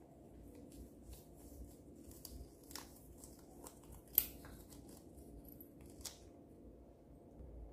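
Faint crackling and small clicks as the cut-open rubber skin of a balloon is peeled off slime covered in foam beads and glitter, with a couple of sharper clicks, the loudest about four seconds in.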